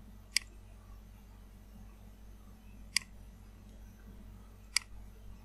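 Three sharp clicks of a computer mouse button as fonts are picked from a list, spaced a couple of seconds apart, over a low steady hum.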